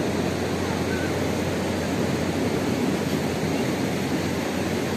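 Steady roar of ocean surf breaking on a sandy beach.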